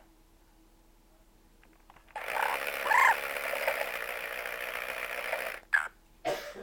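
Blue-fronted Amazon parrot making a harsh, noisy sound of about three seconds that starts about two seconds in, followed by two short bursts near the end.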